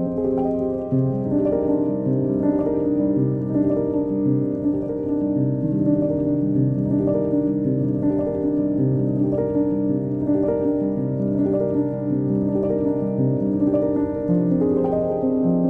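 Background music: soft piano with sustained notes changing about once a second.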